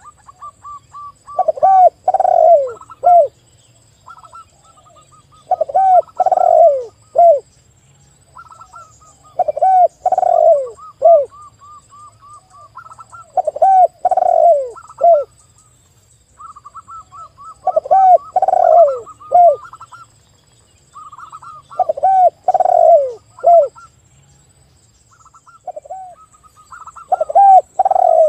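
Spotted dove and zebra dove cooing together. Loud phrases of three or four falling coos come about every four seconds, and softer, higher, rapid runs of short notes fill the gaps between them.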